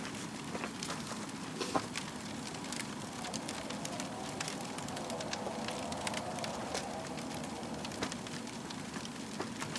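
Wood fire crackling, with scattered sharp pops over a steady hiss.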